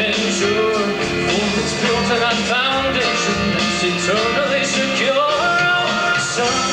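A rock song with singing over electric guitar, bass and drums, with a steady beat.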